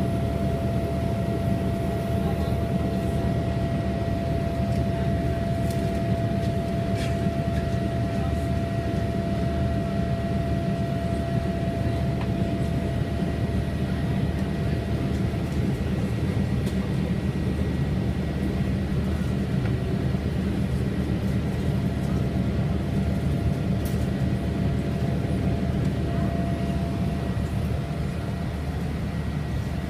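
Boeing 787-8 jet engines running steadily: a constant deep rumble with a few thin, steady whine tones above it.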